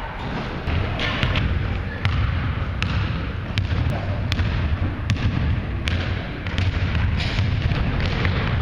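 Basketball bouncing and being dribbled on a hardwood gym floor, with sharp irregular thuds roughly once or twice a second amid players' running footsteps, echoing in a large gym hall.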